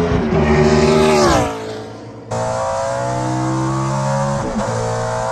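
Stock car's racing V8 at high revs passes by, its pitch falling as it goes away and fades. About two seconds in there is an abrupt cut to an in-car engine sound, held steady at high revs with the pitch rising slightly.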